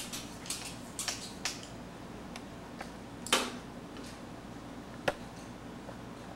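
Small clicks and scrapes from hands working at the neck of a wine bottle, as when its foil capsule is being cut and peeled. A brief scrape about three seconds in and a sharp click about five seconds in are the loudest.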